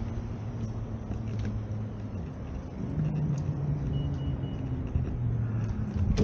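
A road vehicle's engine running close by: a steady low hum over street noise, shifting in pitch and growing a little louder about halfway through.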